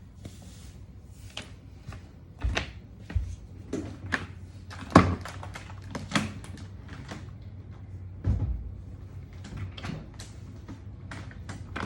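Irregular knocks, clicks and a few dull thumps, the loudest about five seconds in, over a low hum.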